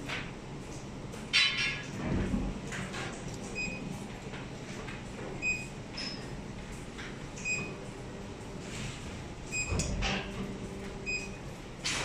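Workshop background with a steady low hum, broken by a sharp knock about a second and a half in, two heavy low thuds, and a few short high chirps.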